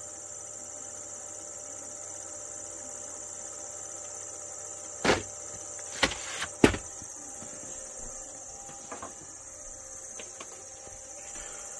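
A VHS tape and its cardboard sleeve being handled: three sharp knocks or clicks about halfway through, within under two seconds, the last the loudest. A steady high-pitched hiss runs underneath.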